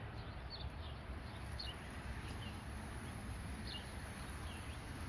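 Small birds chirping now and then in the background, short high chirps about once a second, over a low steady rumble.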